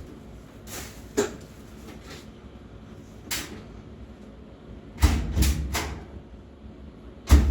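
Scattered clicks and knocks from handling the washing machine, then a cluster of heavier knocks with a deep thud about five seconds in and one loud thump near the end.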